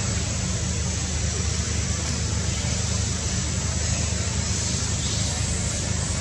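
Steady low motor hum with a constant hiss over it and a faint high whine, not changing in level.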